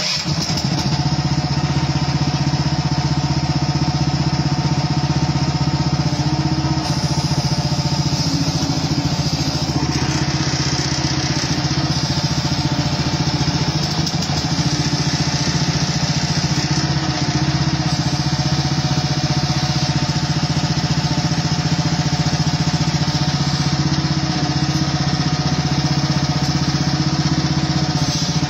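HighTop HT10 mini excavator's small engine running steadily at a constant speed, a low hum with overtones. A higher mechanical hiss over it grows louder about ten seconds in.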